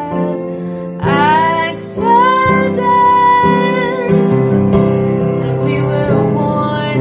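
A woman singing long held notes, sliding up into them about a second in, with piano accompaniment beneath.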